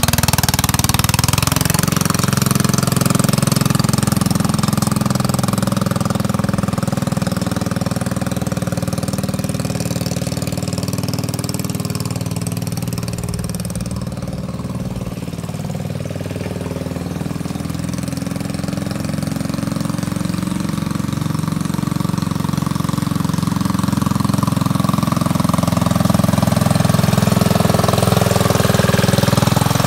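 The engine of a 1953 Country Squire garden tractor running steadily as the tractor is driven. It grows fainter as the tractor moves away about halfway through, then louder again as it comes back. It runs well now that its carburetor has been cleaned.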